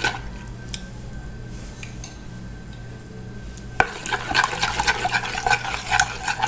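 A metal spoon stirring a thin liquid marinade in a plastic bowl, the spoon swishing through the liquid and scraping and clicking against the bowl. The stirring gets louder and busier about four seconds in.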